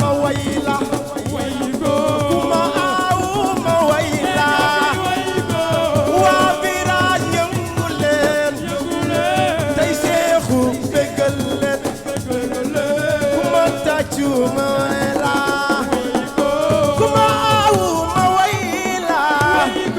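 Senegalese assiko band music: a singer's voice over dense, fast percussion with a shaker, loud and unbroken.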